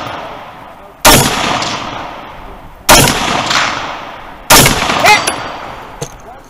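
Three shots from a scoped rifle, spaced about two seconds apart. Each sharp crack is followed by a long echoing tail that dies away. Another sharp sound comes about half a second after the third shot.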